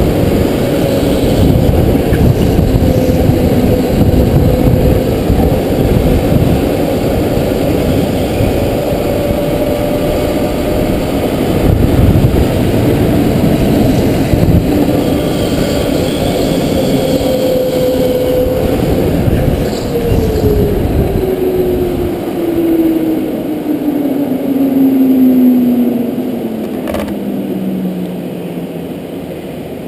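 Go-kart on a smooth concrete track, its motor droning with a pitch that wavers up and down through the corners over a rough rumble from the kart. Past the two-thirds mark the pitch falls steadily and the rumble drops away as the kart slows.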